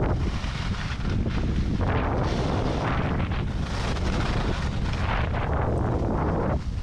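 Wind buffeting the camera microphone at about 50 km/h on skis, a steady low rumble. Over it, the hiss and scrape of skis on packed snow swells and fades every second or so with the skier's turns.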